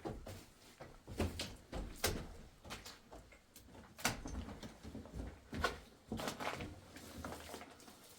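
A series of irregular knocks and clunks, a second or two apart, like things being handled or struck.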